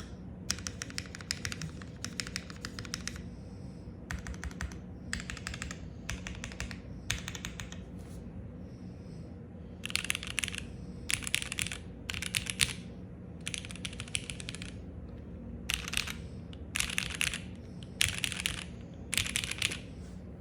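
Typing on a QK65 mechanical keyboard with Cherry MX Black Hyperglide linear switches: short runs of rapid keystrokes with brief pauses between them, louder in the second half.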